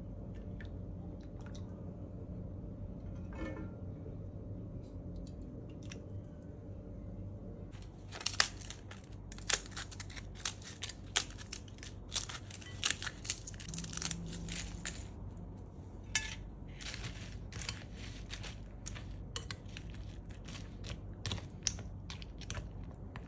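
Flatbread being torn into pieces by hand over a bowl of soup, a long run of sharp crackles and tearing sounds. For the first several seconds only a low steady hum is heard before the tearing begins.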